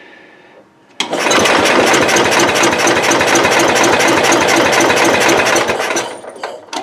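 Cub Cadet 108's single-cylinder Kohler engine being turned over on its starter for about five seconds in an attempt to start it, with points that are worn out. It starts abruptly about a second in and dies away near the end.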